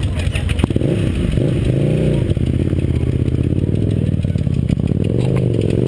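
Several motorcycle engines running close by, idling, with an engine revved up and back down about two seconds in and again near the end as bikes pull out.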